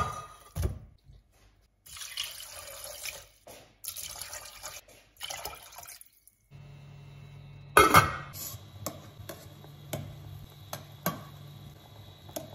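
Raw pork pieces tipped from a bowl into a stainless steel pot with a knock, then water poured into the pot in splashy spells. After that a metal spoon stirs in the pot, with one loud clank a little past the middle and light regular taps against the pot's side.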